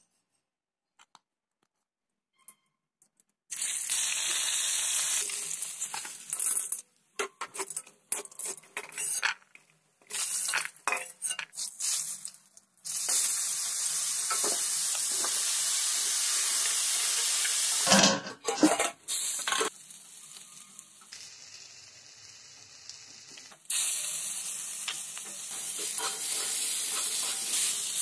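Near silent for the first few seconds, then vegetable pieces sizzling in hot oil in a wok, a steady hiss that stops and restarts several times. A metal spatula scrapes and clinks against the pan as the pieces are stirred, loudest about fifteen seconds in.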